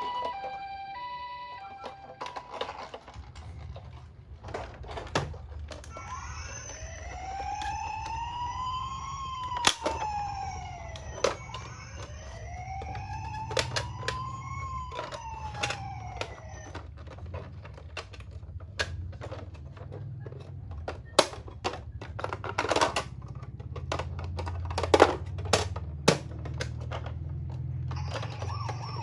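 Toy ambulance sirens with miniature toy cars rolling and clacking. A stepping two-tone siren sounds briefly at the start, then a few seconds in come two slow rising-and-falling wails. Under them runs a steady low rumble, broken by many sharp clicks and knocks, the loudest of them near the end.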